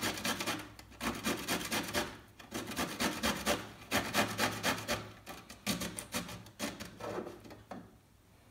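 Small pickled gherkins grated on a stainless-steel box grater: rapid rasping strokes in several short runs with brief pauses, stopping shortly before the end.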